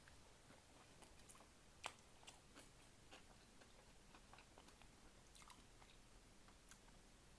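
Faint chewing of a Burger King Quadruple Whopper, with scattered small clicks and crunches, one sharper about two seconds in.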